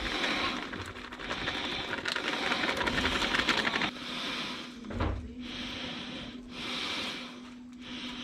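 Whole eggs being cracked into a pastry-lined pie dish: clicky shell cracks and kitchen handling noise in stretches with short pauses, a low thump about five seconds in, and a faint steady hum underneath.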